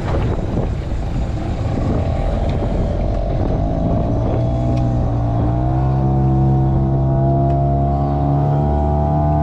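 A boat's engine running. Its pitch climbs over the first few seconds, then holds steady, over wind and water noise.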